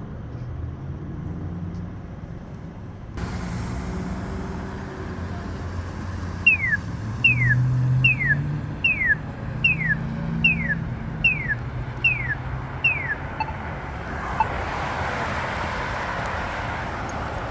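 Road traffic at an intersection, engines idling and passing, with the sound rising about three seconds in. From about six seconds in there is a run of nine quick chirps that fall in pitch, evenly spaced a little under a second apart, and near the end a rush of passing-traffic noise.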